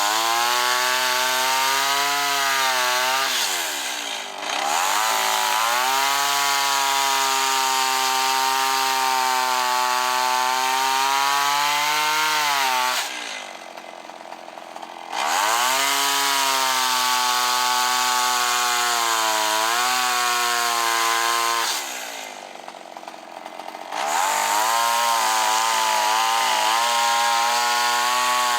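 Kyoritsu CS-362 two-stroke chainsaw running at high revs with a wavering pitch, back running after repair of its no-spark ignition fault. Twice the revs fall away and the sound drops quieter for about two seconds before the engine picks up again.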